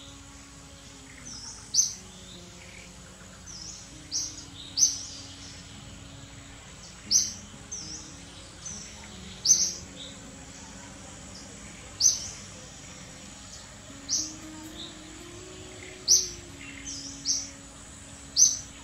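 A bird calling, one short, high call repeated about every two seconds, sometimes twice in quick succession, over steady outdoor background noise.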